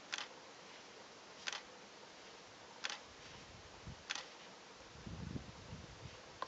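Four short, sharp clicks, about one every second and a half, over faint background hiss, with a low wind rumble on the microphone near the end.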